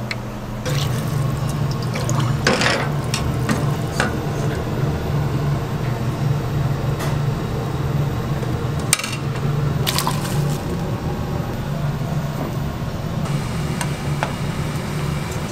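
Tteokbokki sauce pouring and splashing into a frying pan and bubbling, with a few sharp clinks of metal utensils, over a steady low hum.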